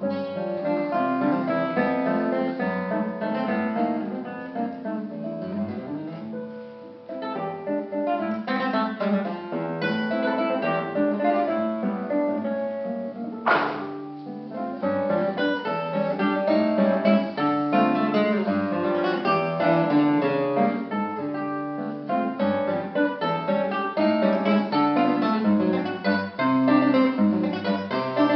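Nylon-string classical guitar played solo, a waltz of dense plucked notes and chords. One sharp click cuts through about halfway through.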